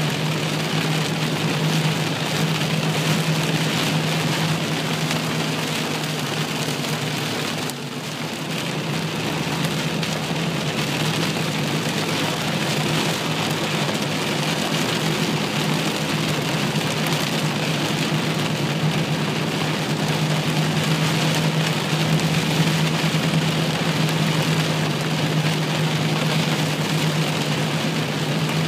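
Heavy rain pelting a moving car's roof and windshield, heard from inside the cabin, over a steady low hum of the car and its tyres on the wet road. The rain dips briefly about eight seconds in.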